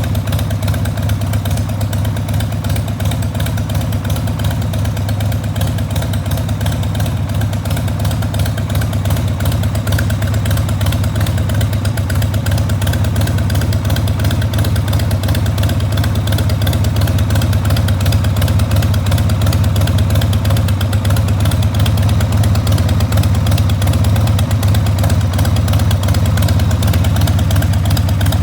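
1994 Harley-Davidson XLH1200 Sportster's 1200 cc Evolution V-twin idling steadily through Screamin' Eagle turnout silencers.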